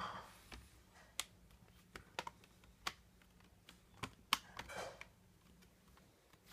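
Plastic screen bezel of a Dell Inspiron 1545 laptop being pressed onto the lid, its clips snapping into place as a series of sharp, irregular clicks, with brief plastic rubbing between them.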